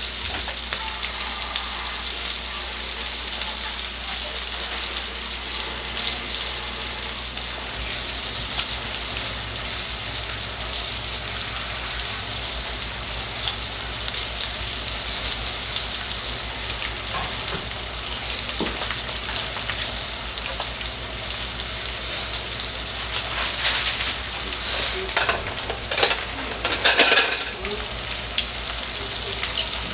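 Chicken sizzling steadily in hot oil in a cast-iron skillet. A few sharp knocks and scrapes come near the end.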